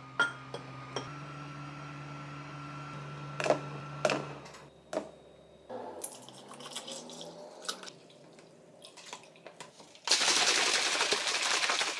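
Frozen mango chunks clinking into a glass bowl, then soy milk poured into a plastic protein shaker. Near the end the shaker is shaken hard for about two seconds, its liquid sloshing loudly.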